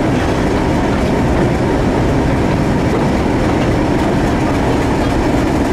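British Rail Class 31 diesel locomotive on the move, its English Electric V12 engine drone and wheel noise on the rails heard at the cab window, steady and loud throughout.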